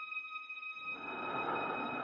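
Film-trailer sound design: a steady high drone under a low rumble that fades out at the start and swells back from about a second in.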